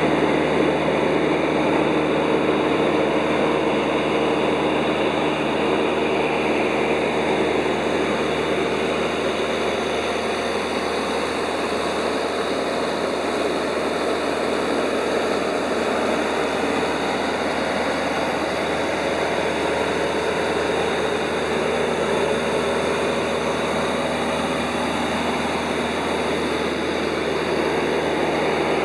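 Light propeller aircraft heard from inside the cabin in level flight: a steady engine and propeller drone mixed with airflow noise.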